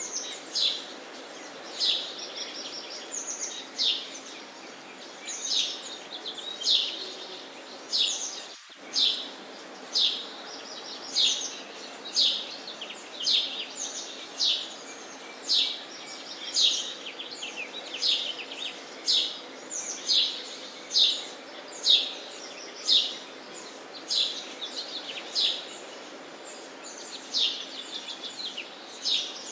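Sparrows chirping: a long run of short, sharp, repeated chirps, roughly one or two a second, over a steady low background noise.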